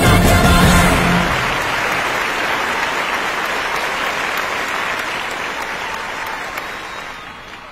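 A stage-show tune ends on a held final chord about a second in, followed by audience applause that fades steadily away.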